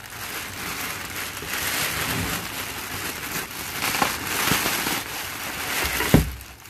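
Brown kraft packing paper crackling and rustling continuously as it is pulled and crumpled by hand, with a heavier thump near the end.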